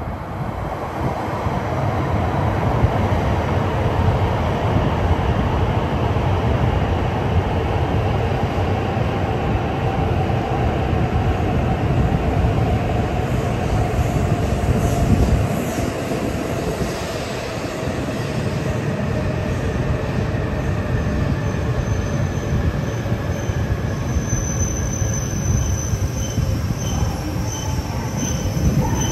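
E5 series Shinkansen train arriving along the platform and slowing down. Steady running noise carries a faint whine that falls slowly in pitch, and a faint, broken high squeal comes in near the end as the train nears its stop.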